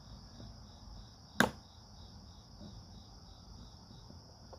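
Bonney R22 refrigeration ratchet turned slowly backwards, its pawl spring at minimum tension: a single sharp click about a second and a half in and another at the very end, about three seconds apart, as the pawl drops over the next tooth. A faint steady high-pitched tone runs underneath.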